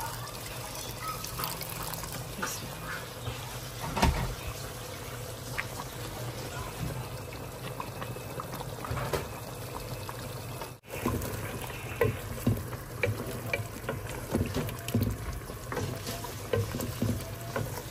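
Liquid pouring and moving in a cooking pot over a steady low hum, with scattered utensil clicks and knocks that come more often in the second half.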